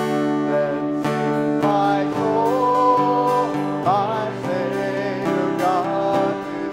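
Acoustic guitar strumming chords in a steady rhythm, with a voice singing a melody over it from about two seconds in: a hymn or worship song.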